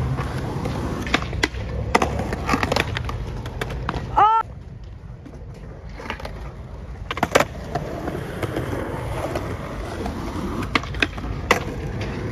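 Skateboard wheels rolling on smooth concrete with the board clacking sharply against the ground several times. A short squeak rises and falls about four seconds in, then the rolling dies down and returns with two loud clacks and further clacks near the end.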